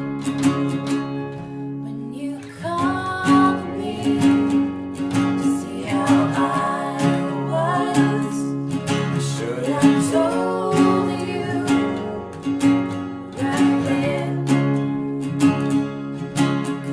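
Acoustic folk-rock song: two acoustic guitars strummed over an acoustic bass guitar, with singing coming in about two and a half seconds in.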